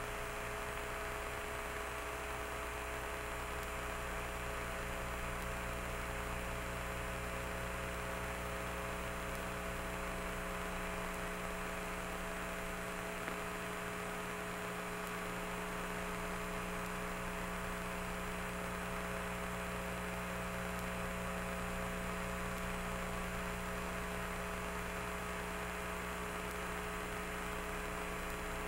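Steady electrical hum and hiss from the mission's radio audio channel with no voice traffic, several fixed tones held unchanged throughout.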